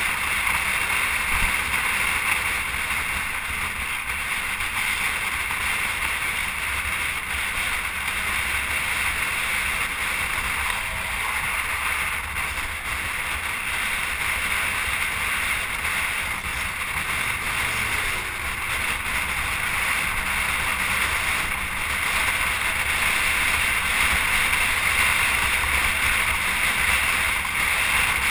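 Steady wind noise buffeting the microphone over a continuous low rumble and hiss, as from a camera moving at speed through the open air.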